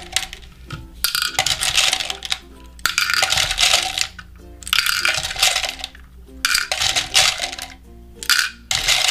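M&M candies spooned into a small toy teacup, clattering as they drop in, in about five separate pours.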